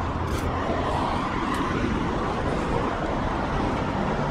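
Road traffic: cars driving past on a city street, a steady rush of engine and tyre noise.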